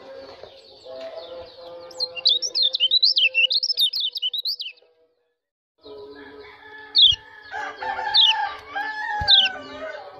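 A white-eye (pleci) singing a fast, high warbling run of chirps. After a brief dropout come a few sharp, falling 'ciak' chirps over a lower, drawn-out call.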